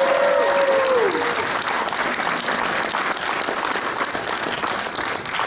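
Audience applauding, with a long held cheer over the clapping that falls away about a second in.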